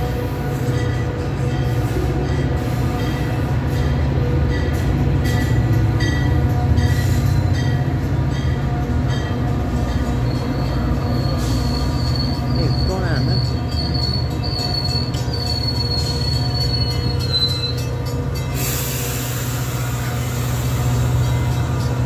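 Metra commuter train of bilevel gallery cars rolling past behind an EMD F40PH diesel locomotive, with a steady low engine drone and wheels clicking over the rail joints. A high, thin wheel squeal runs from about ten seconds in to near eighteen seconds, and then a loud steady hiss begins.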